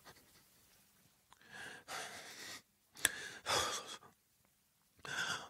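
A frightened man's heavy, shaky breathing: several audible breaths in and out after a scare, with a short sharp click about three seconds in.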